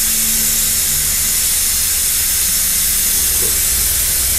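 A steady, loud hiss that is strongest in the highest pitches, with a low, even hum underneath.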